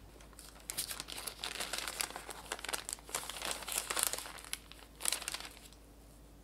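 Parchment paper crinkling and rustling as it is lifted and pulled to roll a cream-covered sponge sheet. The crackling comes in uneven bursts for about five seconds, starting about a second in, and stops near the end.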